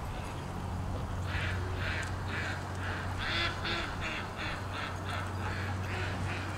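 Mallard quacking: a rapid run of about fifteen quacks, roughly three a second, starting about a second in.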